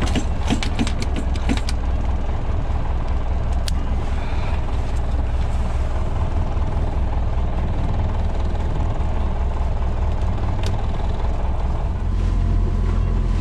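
A boat engine runs with a steady low rumble, which grows a little louder near the end. A few quick clicks sound in the first two seconds.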